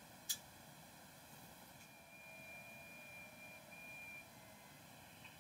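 Near silence: room tone with low hiss, a faint click shortly after the start, and a very faint steady high tone for about two seconds in the middle.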